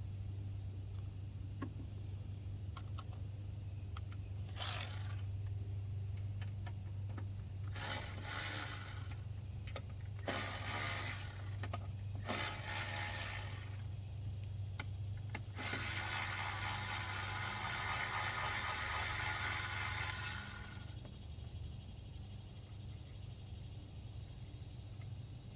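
Socket ratchet clicking as bolts are turned: several short spells of ratcheting, then a longer run of about five seconds, over a steady low hum.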